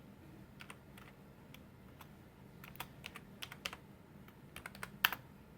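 Typing on a computer keyboard: irregular key clicks, a few scattered at first, then two quick flurries, the loudest keystroke near the end.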